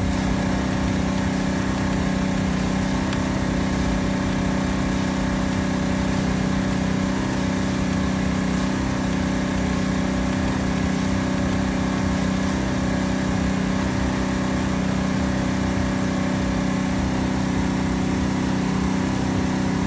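An engine idling steadily, a constant hum that holds the same speed throughout.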